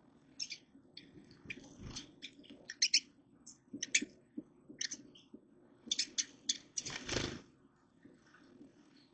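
Squirrels and birds feeding at close range: irregular sharp crunching and clicking as food is bitten and cracked, with a louder rustling burst about seven seconds in.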